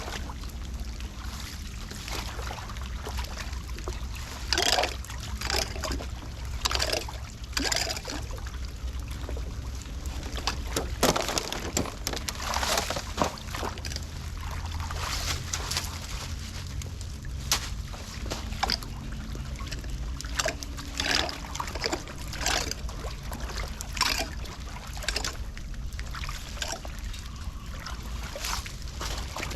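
Floodwater sloshing and splashing around a clogged street drain as it is being cleared, with frequent short, sharp splashes and scrapes at irregular intervals over a steady low rumble.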